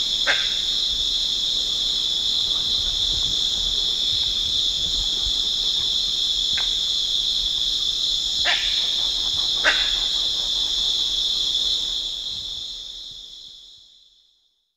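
Steady, high, shrill chorus of tropical insects with four short, sharp barks from grey-cheeked mangabeys spread through it. Everything fades out over the last few seconds.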